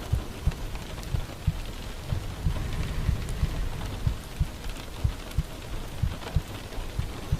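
Steady rain, with low soft thumps repeating at an uneven beat beneath it.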